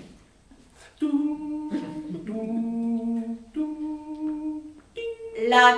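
A person humming three or four long, steady notes, the middle one lower, starting about a second in.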